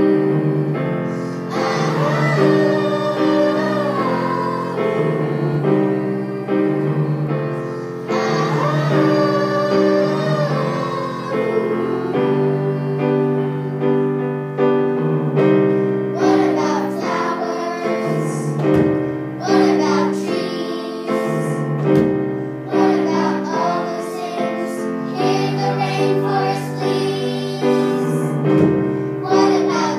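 A song with piano accompaniment and singing voices. The singing grows fuller from about halfway through.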